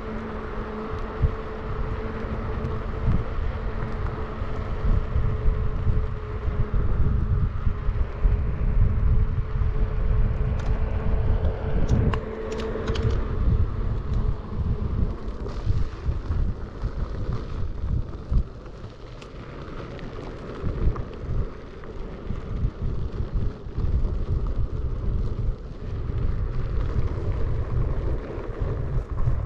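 Wind buffeting the microphone while riding a Onewheel GT electric board, a gusty low rumble throughout. Over it a steady whine holds for the first half and stops about thirteen seconds in.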